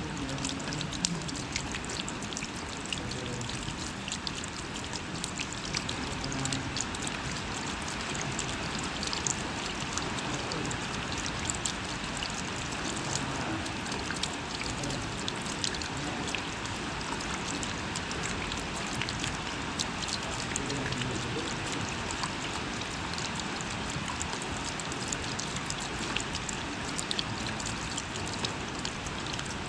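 Light rain falling steadily: an even hiss with many sharp individual drop hits scattered throughout.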